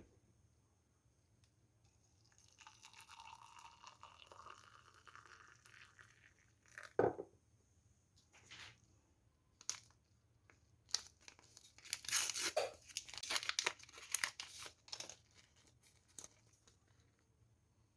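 Quiet kitchen food-preparation handling sounds: a soft hiss for a few seconds, a sharp knock about seven seconds in, then scattered clicks and a cluster of rustling and clicking near the middle-to-late part.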